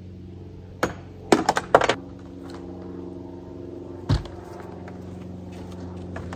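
Gear being knocked and set down on a bass boat's deck: a sharp knock about a second in, a quick run of loud clacks just after, and a dull thump around four seconds, over a steady low hum.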